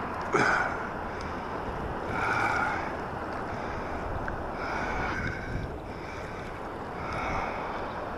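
Steady rush of water with wind buffeting the microphone, swelling louder four or five times, about every two seconds.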